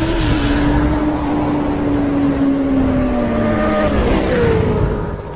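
Engine sound effect held at high revs. Its pitch sags slowly, drops about four seconds in, and the sound fades near the end.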